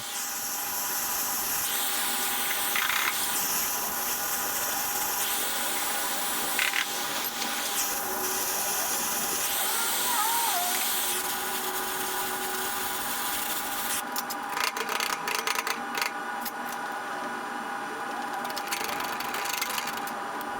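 Gas torch flame hissing steadily while heating steel petals, in short clips that each start and stop every couple of seconds. In the last several seconds there are many sharp clicks and crackles.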